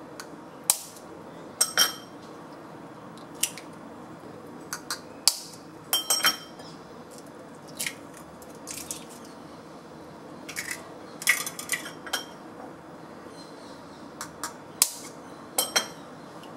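Hen's eggs being cracked into a glass mixing bowl: a knife blade tapping the shells, and the blade and shells clinking against the glass, in scattered sharp taps throughout.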